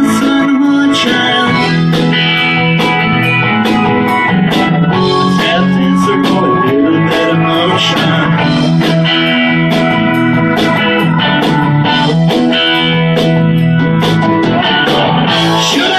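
Live rock band playing without vocals: electric guitars over bass, a drum kit keeping a steady beat, and keyboard.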